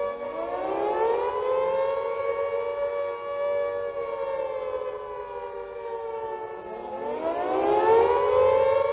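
British WWII Carter air raid siren ("Moaning Minnie") wailing. Its pitch climbs at the start, holds, sags slowly, then climbs again about seven seconds in: the rising-and-falling Attack Warning signal.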